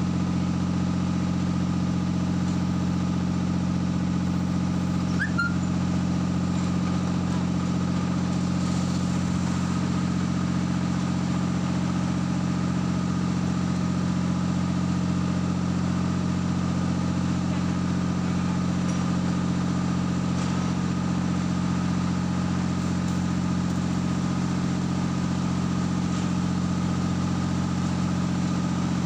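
Heavy machinery engine idling steadily, a constant low drone that does not change speed.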